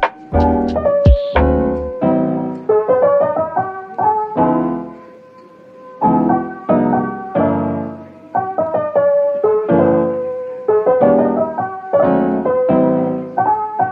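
Background piano music: notes and chords struck and fading in a light, unhurried tune, with a short lull about five seconds in.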